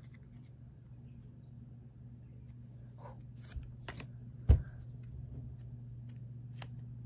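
Pokémon trading cards being handled and slid through the hands, with faint soft clicks and rustles, and one louder thump about four and a half seconds in. A steady low hum runs underneath.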